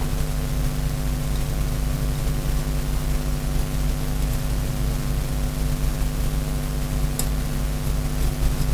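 Steady machine hum under a constant hiss, with a couple of faint light clicks near the end.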